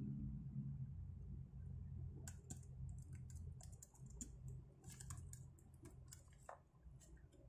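Faint typing on a computer keyboard: a run of irregular key clicks starting about two seconds in, over a low steady hum.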